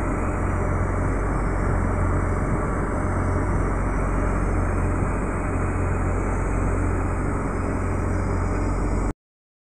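Ship's engine running steadily underway: a constant low drone and hum that cuts off suddenly about nine seconds in.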